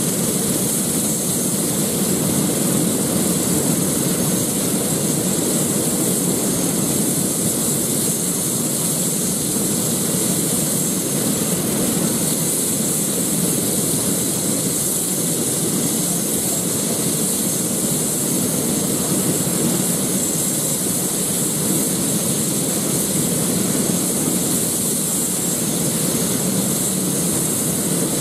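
Airbus H145 police helicopter running on the ground with its rotors turning: the steady high whine of its twin turboshaft engines over the rushing noise of the rotor.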